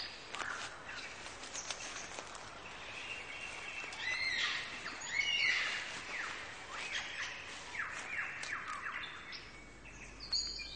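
Several birds singing and calling in a forest, with many overlapping whistles, chirps and quick falling notes. The singing is busiest from about four seconds in.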